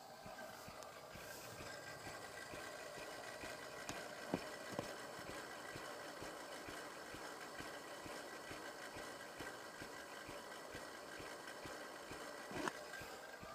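Car engine idling faintly, with a steady thin whine over it and two light clicks about four and a half seconds in.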